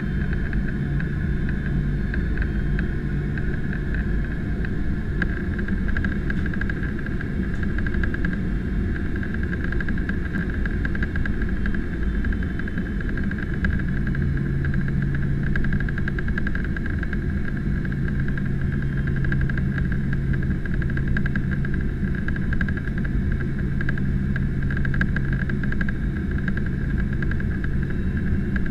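Boeing 767-300ER heard from inside the cabin on final approach: the steady roar of the jet engines and rushing air, with a steady high whine over it and a low hum that grows stronger about halfway through.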